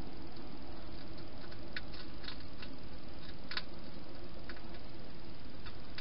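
Hedgehog eating from a food bowl: an irregular scatter of small sharp clicks and crunches, mostly in the middle seconds, over a steady hiss.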